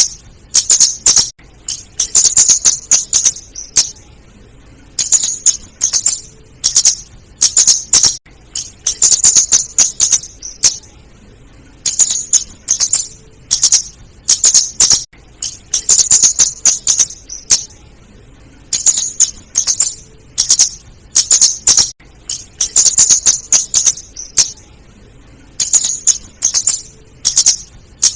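Female flowerpecker calling: rapid, high, thin ticking chips in bursts of a second or two, repeated every few seconds. It is a lure call for drawing in other flowerpeckers.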